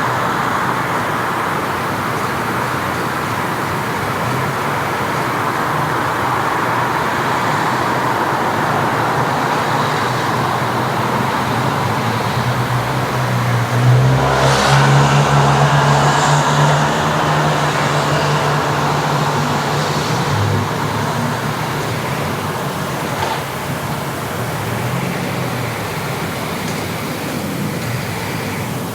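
Street traffic noise, a steady wash of passing cars. About halfway through, a vehicle passes close, and its low engine hum is the loudest sound for several seconds before it fades back into the traffic.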